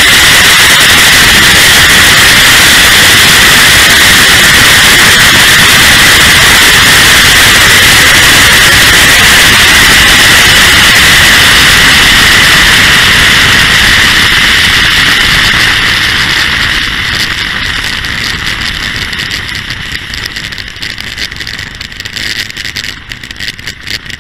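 Hood-mounted camera audio overloaded by the Mustang's 428 Cobra Jet big-block V8 running at full throttle down a drag strip, heard as a loud, distorted, steady wall of noise. About two-thirds of the way in it falls away, turning quieter and uneven.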